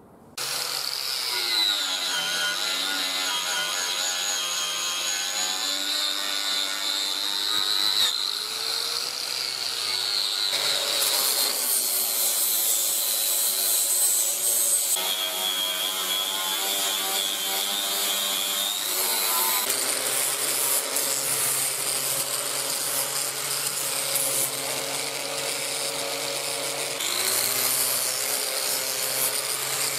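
Angle grinder with an abrasive disc grinding the steel plate of a welding table top down to bare metal. It starts about half a second in and runs without a break, its whine dipping in pitch and recovering several times as the disc is pressed into the plate and eased off.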